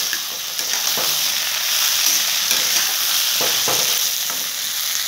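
Mushrooms, peas and onions sizzling in hot oil in a wok while a metal spatula stirs them, scraping against the pan in short strokes every second or so.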